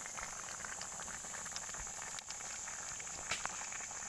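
Food cooking over heat: a steady hiss with many small, irregular pops and crackles from a bubbling dish of tai ikan.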